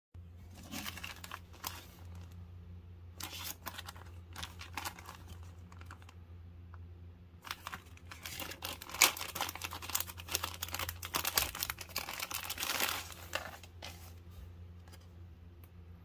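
Clear plastic bag crinkling and rustling in bursts as it is handled and opened and the carded tool is slid out, busiest and loudest in the middle, over a low steady hum.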